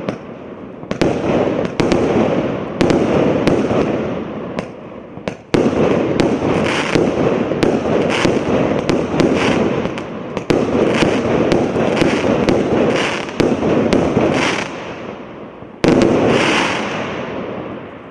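A 244-shot consumer firework cake firing a rapid run of shots, several sharp reports a second, each followed by bursts and crackle. The shots thin out and fade near the end.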